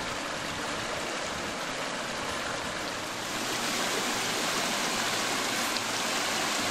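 Whitewater rapids of a small rocky river rushing over granite ledges: a steady rush of water that grows louder about three seconds in.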